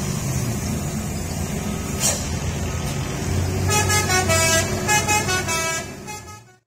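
Heavy truck engine running with road noise, with a brief hiss about two seconds in. A little past halfway, a vehicle horn plays a quick run of changing notes, like a musical multi-tone horn, before the sound fades out at the end.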